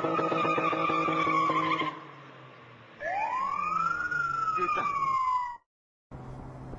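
Car tyres screeching as the car slides sideways around a street corner: a loud, steady squeal for about two seconds. After a brief lull comes a second squeal that rises and then falls in pitch. It cuts off abruptly near the end, and a low steady drone follows.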